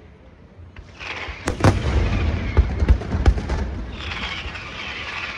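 Aerial fireworks display: after a quieter first second, sharp bangs of shells bursting and a run of deep thuds, over a steady hiss from the glittering white stars, which grows again near the end.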